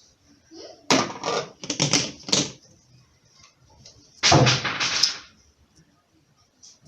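Dishes and utensils clattering and scraping on a kitchen counter in three bursts: two short rattling ones near the start and a louder, longer one about four seconds in.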